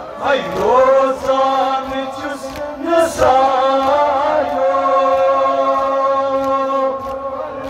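Kashmiri nauha (Shia lament) chanted by a male reciter over a microphone and loudspeaker, the melody bending in the first seconds and then settling into long held notes.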